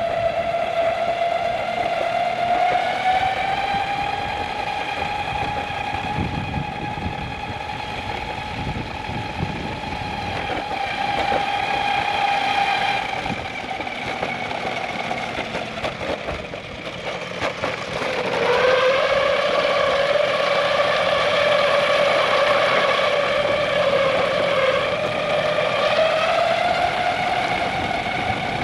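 Ecomobl M24 all-wheel-drive electric skateboard's motors whining while riding, the pitch rising and falling with speed. The whine fades and dips about sixteen seconds in, comes back lower, then climbs again near the end, over rolling noise from the wheels.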